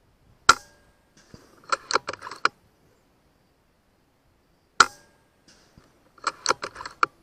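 Two shots from an FX M4 PCP air rifle firing slugs, each a single sharp crack, the first about half a second in and the second just before five seconds. Roughly a second after each shot comes a quick run of metallic clicks as the action is cycled to chamber the next slug.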